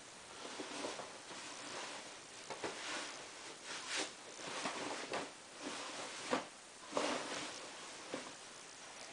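Irregular fabric rustling with soft knocks and clicks at uneven intervals, from handling a pair of cotton work overalls.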